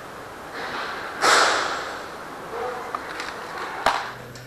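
A sharp, noisy breath close to the microphone about a second in, then a single sharp click near the end.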